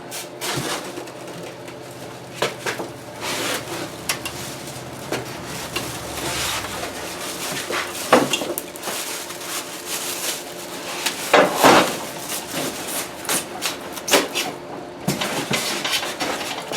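Irregular knocks, clunks and rattles of a jointer-planer and its packing being handled and turned over, with louder bangs about eight seconds in and again around eleven and a half seconds.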